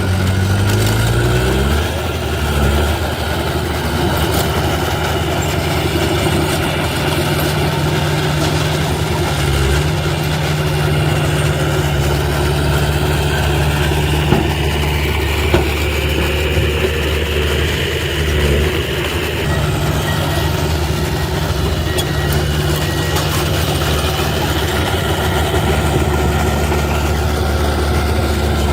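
Diesel engine of a heavy earthmoving machine running steadily. Its speed dips and picks up again right at the start, and two sharp knocks come a little past halfway, about a second and a half apart.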